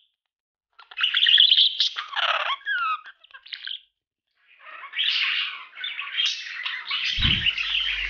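Budgerigar chattering and warbling: about three seconds of quick, pitch-sliding chirps, a short pause, then dense, continuous warble.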